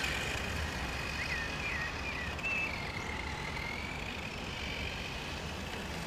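Helion Dominus 10SC RC truck's brushed electric motor whining as the truck drives, a thin tone that wavers up and down in pitch with the throttle, with a few quick dips about a second in.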